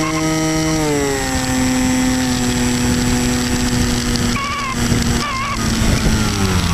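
Electric pusher motor and propeller of an Easystar 2 RC glider heard from on board, a steady whine over wind rush. Its pitch slides down about a second in and again near the end.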